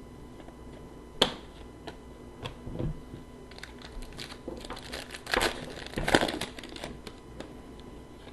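Plastic trading card pack wrappers being handled and crinkled, with a sharp click about a second in and a stretch of crinkling in the middle.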